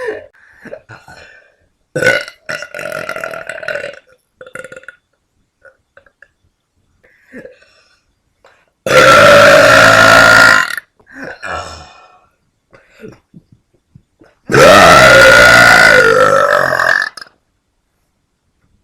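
Two long, loud, deliberate burps from a young woman: the first comes about nine seconds in and lasts under two seconds; the second, a few seconds later, is longer and wavers in pitch.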